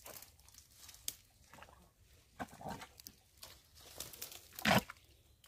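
Hands digging into wet mud at a crab burrow: scattered soft squelches and rustling of leaves, with one louder sudden sound a little before the end.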